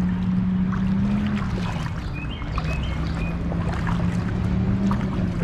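Water swishing and splashing around legs wading through a shallow creek, with a steady low hum underneath.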